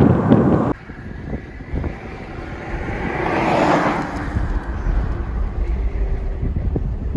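Wind buffeting the microphone, cutting off suddenly under a second in to a quieter low rumble. A rushing sound swells and fades midway, like a vehicle passing.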